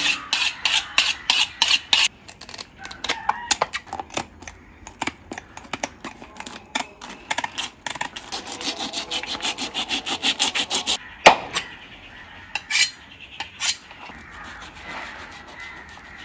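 Knife cleaning fresh-caught fish: rapid repeated scraping strokes, with a sharp knock about eleven seconds in and two more soon after.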